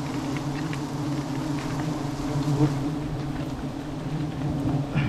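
Swarm of honeybees buzzing steadily around a wild nest that is being cut open for its honey, the colony stirred up by the harvest.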